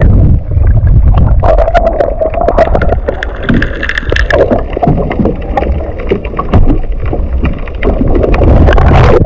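Water splashing and sloshing close to the microphone, with heavy rumbling buffeting and many short knocks. It stops abruptly at the end.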